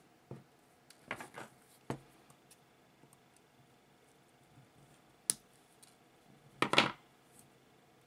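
Small side cutters snipping away copper strands of a heavy 2-gauge cable: a few sharp, scattered snips and clicks, the loudest cluster near the end. The strands are being trimmed so the cable fits an undersized terminal lug.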